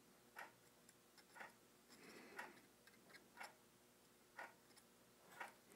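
Near silence with a faint, regular tick about once a second.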